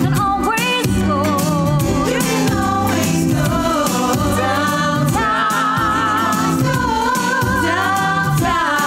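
A musical-theatre song: a woman sings the lead with vibrato over a full band backing, with other voices joining in.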